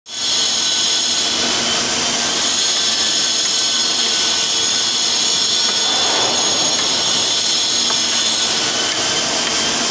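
Steady mechanical noise: a continuous hiss under a high, many-toned whine that does not change in pitch or level.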